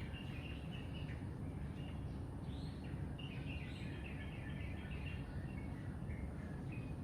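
Birds chirping in many short, quick notes over a steady low rumble.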